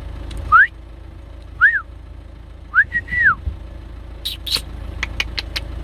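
A person whistling three short notes, the first rising and the next two rising and falling, followed near the end by a quick run of sharp clicks, over a low steady rumble.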